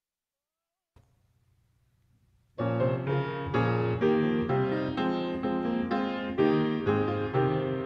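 Piano playing a steady run of notes, starting about two and a half seconds in after near silence.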